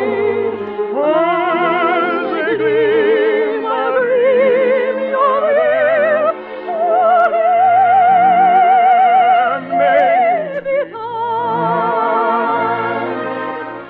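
Operetta music: a singing voice with wide vibrato carrying a melody over orchestral accompaniment, holding one long high note about halfway through.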